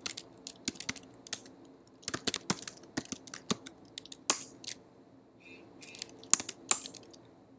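Typing on a computer keyboard: a run of irregular key clicks, with a few louder strokes near the end.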